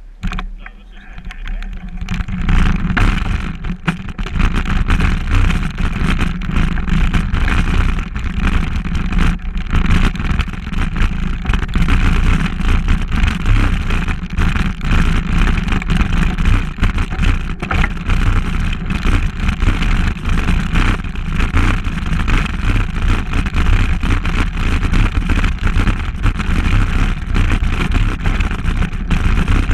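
Mountain bike riding over a dirt forest trail, picked up by a handlebar-mounted camera: a steady rumble and rattle with many small knocks, building up over the first couple of seconds as the bike gets moving.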